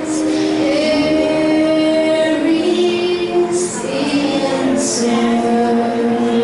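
Young voices singing a song together in long held notes, with musical accompaniment.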